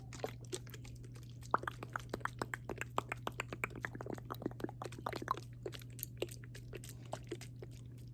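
Close-up ASMR mouth sounds: a quick, irregular run of wet clicks and smacks that starts about a second and a half in and thins out near the end.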